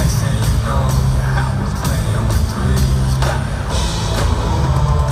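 Live band playing a pop song at full volume, with heavy sustained bass and a steady drum beat.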